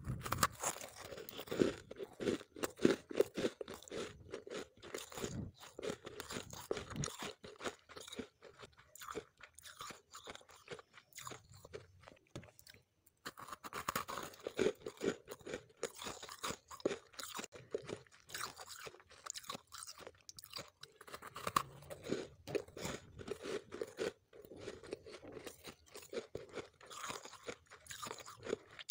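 Close-up crunching and chewing of mouthfuls of refrozen, powdery freezer frost: dense, crisp crunches, with a couple of brief pauses.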